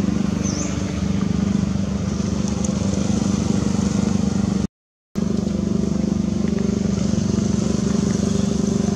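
A steady engine hum with even pulsing, like a small engine idling, that cuts out completely for about half a second near the middle.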